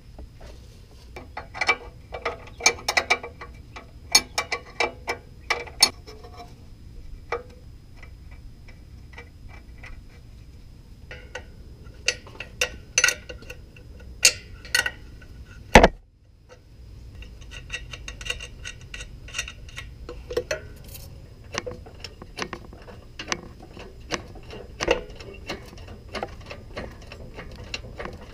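Ratchet wrench clicking in runs of fast, even ticks as a 14 mm motor mount bolt is turned, with sharp clinks of tools against metal in the first few seconds and one loud knock about sixteen seconds in.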